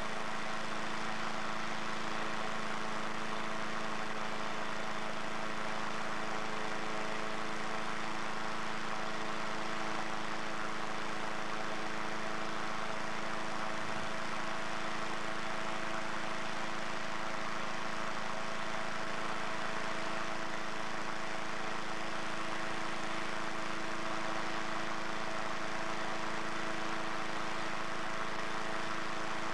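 Gasoline-engine inflator fan running steadily, blowing cold air into a hot air balloon envelope during cold inflation, with an even engine hum under the rush of the fan. A short thump about halfway through.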